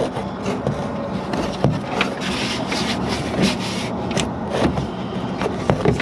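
Rubbing and scraping with scattered light clicks as hands work at the latch cables inside a van's rear door panel, with the camera handled close to the microphone.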